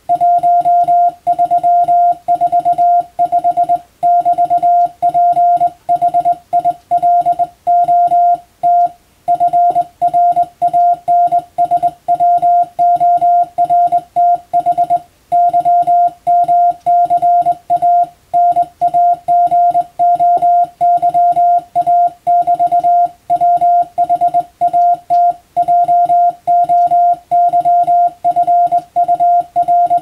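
Morse code sent by hand on a straight telegraph key, heard as a single steady mid-pitched beep keyed on and off in dots and dashes, with short breaks between words. It is a practice telegram in plain-language text.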